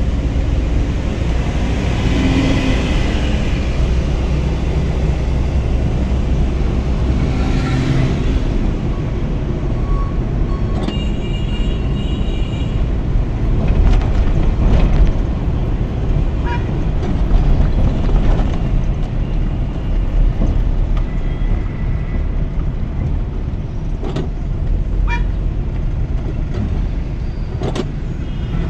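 Steady low rumble of a car's engine and tyres heard from inside the cabin while driving in town traffic. A brief higher tone sounds about eleven seconds in, and there are a few short clicks later on.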